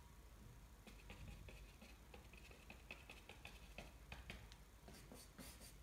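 Faint, quick, irregular taps of a paintbrush dabbing paint onto a painting to build up tree foliage, starting about a second in.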